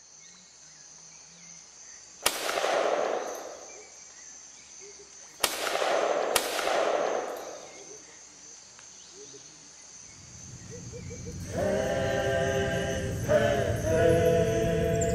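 Three gunshots ringing out through forest over a steady high insect drone: one about two seconds in, then two more about a second apart. Music with singing voices comes in about eleven seconds in.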